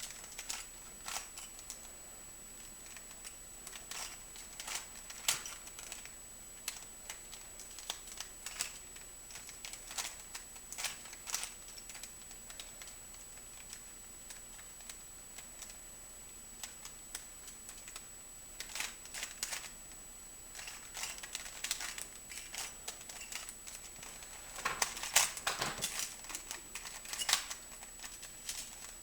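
Rubik's cube being turned by hand: its plastic layers click and clatter in quick, irregular runs, with a lull in the middle and a denser flurry near the end.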